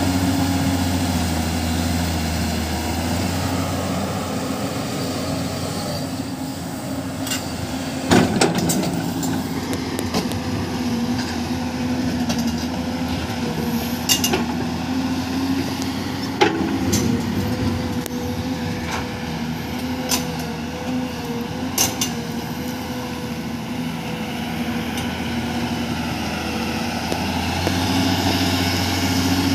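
Heavy diesel excavator working at a dump truck, its engine running steadily under load with a steady higher tone through the middle. A handful of sharp clanks and knocks stand out, the loudest about eight seconds in.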